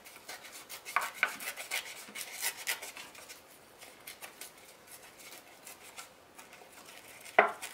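Pink cardstock being torn by hand along its edges for a rough, deckled border: a run of short rips and crackles over the first few seconds, quieter paper handling after, and one sharp, louder rip near the end.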